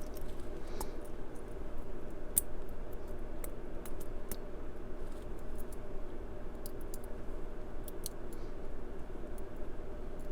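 Lock pick and tension wrench working the pin tumblers of a Brinks 50mm padlock: faint, irregular small metallic clicks and scrapes over a steady low hum.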